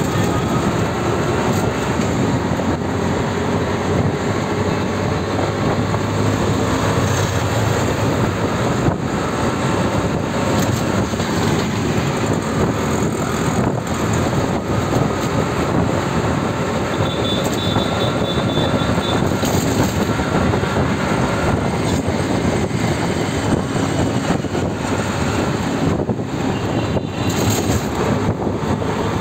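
Moving auto-rickshaw's small engine running steadily, with road noise, heard from inside the open-sided cab.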